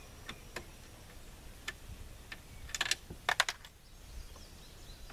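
Scattered light clicks and taps of screws and plastic dash trim being handled while a truck's HVAC control panel is unscrewed and worked loose. A quick run of sharper clicks comes about three seconds in.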